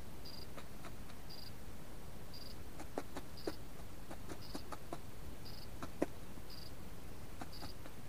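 A pheasant pecking at feed: a run of sharp clicks between about three and six seconds in. A short high peep repeats evenly about once a second.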